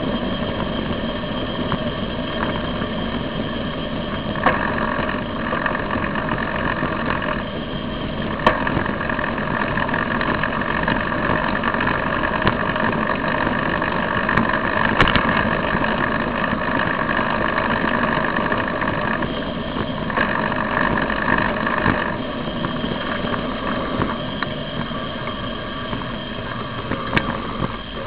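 Steady road noise from a camera mounted on a moving bicycle, mixed with street traffic, with a higher hum that comes and goes for several seconds at a time and a few sharp clicks.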